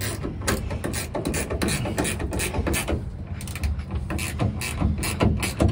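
Ratchet wrench clicking in quick, uneven runs of strokes as it tightens the bolt of a metal truck-cap clamp on the bed rail.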